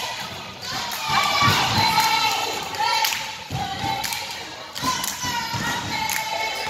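A basketball thumping on a hardwood gym floor as players dribble, with sneakers squeaking and spectators' voices over it.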